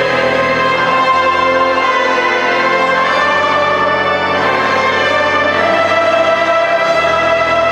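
Live music from a large mixed choir and its accompaniment: slow, sustained chords with long held notes.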